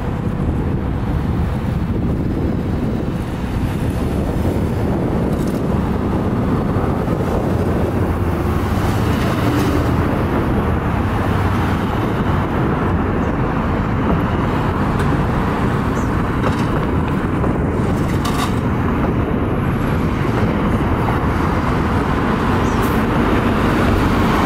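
Steady, loud vehicle noise: a dense rumble of engines and road traffic that carries on without a break.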